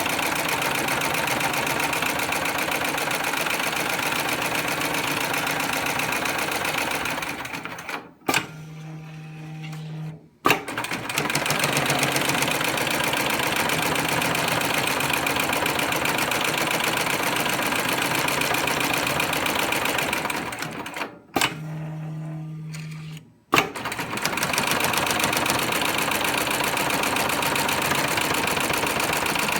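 SEWPRO PSM-5020 heavy-duty programmable sewing machine stitching at speed. It stops twice for about two seconds between sewing cycles, with a sharp click at each stop and restart and a low hum while it pauses.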